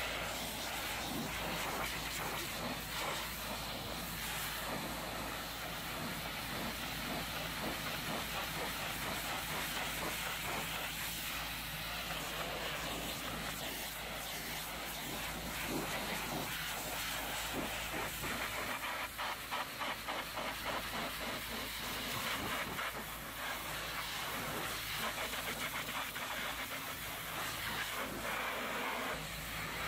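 High-pressure hot-water jet from a pressure-washer lance blasting the metal body panels and a wheel of a minibus: a steady spray hiss, fluttering briefly about two-thirds of the way through.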